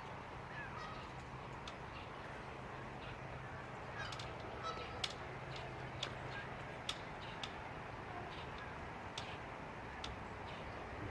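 Geese calling now and then, with short sharp calls scattered through, over a low steady hum that fades out about seven seconds in.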